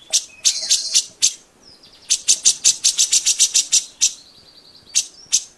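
Grey-cheeked bulbul (cucak jenggot) singing in full voice: two fast runs of sharp, high chattering notes, about eight a second, with a short whistled note between them and a thinner high note near the end.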